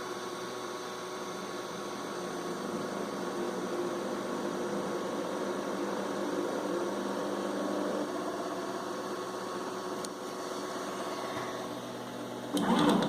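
Anet A8 3D printer's Z-axis stepper motors running with a steady, multi-toned hum, with a short louder rattle just before the end. One motor is vibrating and staggering instead of turning smoothly, which the owner puts down to a faulty Z driver or motor.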